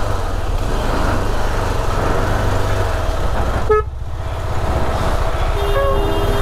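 Motorcycle engine running at low speed in slow traffic, with a short toot just before four seconds in and a steady vehicle horn near the end, lasting about a second.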